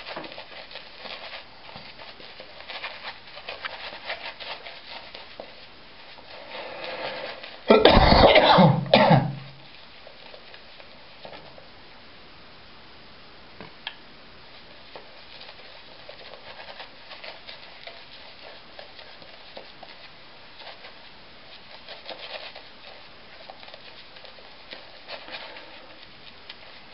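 Mühle Finest badger-hair shaving brush working lather onto the face, a soft bristly scrubbing that comes and goes, while re-lathering for the second pass. About eight seconds in, a loud cough lasting a second or so.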